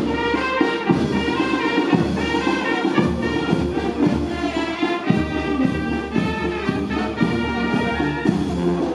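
Marching brass band playing a tune while walking, brass instruments over a steady beat.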